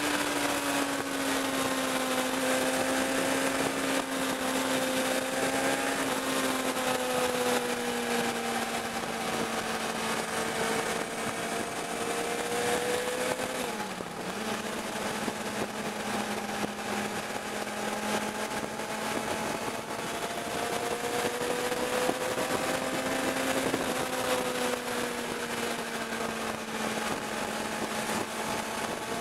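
Sport motorcycle engine running at steady revs while cruising, with wind rush on the microphone; the engine note sags slowly and dips briefly about halfway through before settling again.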